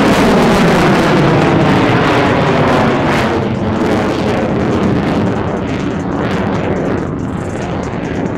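Twin Pratt & Whitney F119 afterburning turbofans of an F-22 Raptor, loud jet noise from the aircraft in a steep climb. The noise fades gradually as it climbs away, turning ragged and crackling over the last few seconds.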